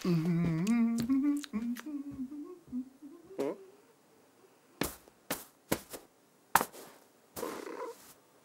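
A man humming a wandering tune for about three and a half seconds, followed by a handful of sharp, separate clicks and taps and a brief rustle near the end.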